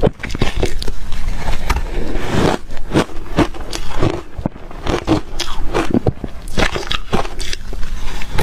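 Ice being crunched between the teeth: loud, irregular cracks and crunches in quick succession as pieces of ice are bitten and chewed.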